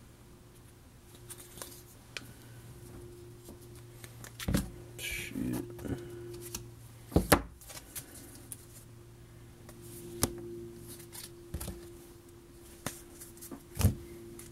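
Baseball trading cards handled and sorted by hand: scattered taps and clicks of cards on a desk, with a short rustle about five seconds in, over a low steady hum.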